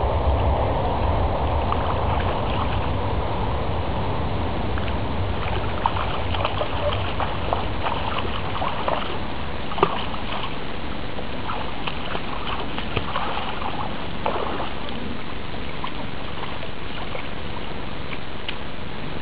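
Light splashes and trickles of children's feet wading in shallow river water, scattered through the middle, over a steady hiss and a low rumble that eases in the first few seconds.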